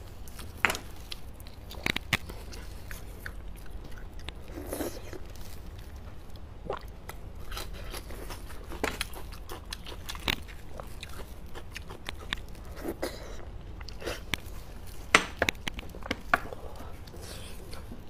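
Close-miked eating of braised beef bone marrow: wet chewing and mouth sounds with scattered sharp clicks and smacks, the loudest about fifteen seconds in.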